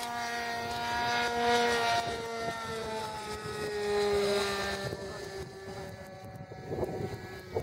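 Radio-controlled model airplane flying overhead: its motor and propeller drone with a pitch that slowly falls as it passes, then fade after about five seconds.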